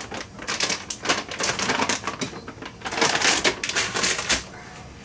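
Rapid clicking and rattling of something being handled, densest about three seconds in and dying away shortly before the end.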